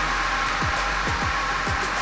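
Background electronic music with a beat of deep kick drums over a dense, steady layer of sound.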